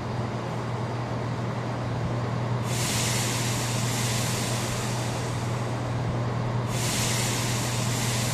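Diesel multiple unit at a station, its engine running with a steady low hum, and a loud hiss of compressed air, like brakes or doors venting, starting a few seconds in and lasting about four seconds.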